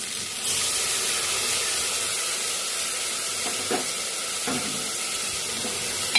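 A spice mix hits hot oil and fried potatoes in an aluminium pressure cooker, hissing and sizzling hard with steam from about half a second in. There are a few light ladle knocks against the pot, and a sharper one at the end.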